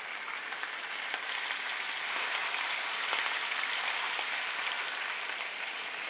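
Flour-dusted beef short ribs and oil sizzling in an enamelled cast-iron pan, with the heat just turned low: a steady hiss with a few faint crackles, swelling slightly in the middle.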